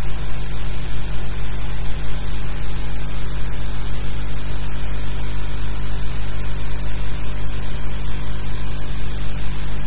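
Steady loud hiss with a low hum underneath, the noise of an old film soundtrack, with no other sound.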